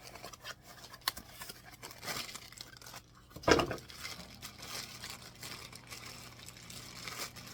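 Packaging crinkling and rustling as a charger cord is pulled out of a box, with scattered clicks and one louder knock about three and a half seconds in.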